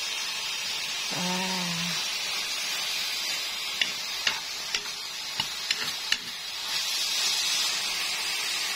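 Kangkong (water spinach) sizzling in a hot wok as it is stir-fried, with a run of sharp clicks from the steel spatula knocking and scraping against the wok about halfway through.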